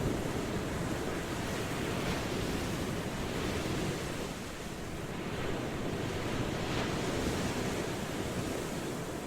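Ocean waves washing onto a shore, a steady rushing surf that eases slightly partway through and swells again.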